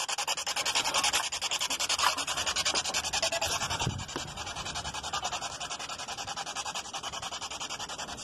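Handheld spirit box radio sweeping through stations, giving a steady hiss of static chopped into rapid even pulses several times a second.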